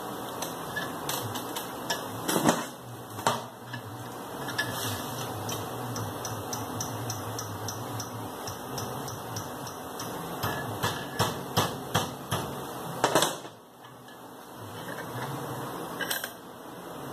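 Hammer striking a thin steel rod clamped in a bench vise to bend it into a mirror stem: scattered sharp taps, then a quicker run of about two taps a second some ten seconds in, ending in one harder blow. A steady hum runs underneath.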